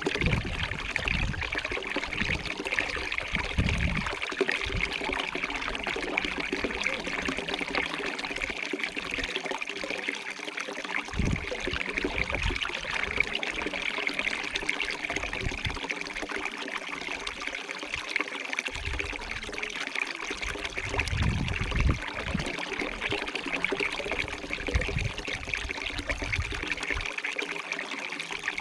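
Stream water running and trickling steadily, with irregular low bumps now and then.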